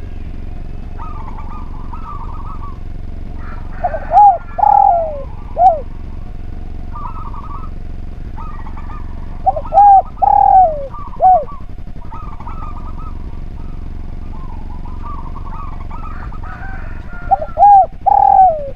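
Spotted dove (derkuku) cooing: three song phrases about six seconds apart, each a short run of a few notes that slide down in pitch. Fainter short trills of other birds repeat between the phrases over a steady hum.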